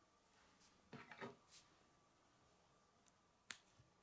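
Plastic K'nex rods and connectors being handled and clicked together: a few soft clicks and rustles about a second in, then one sharp snap near the end, over near silence.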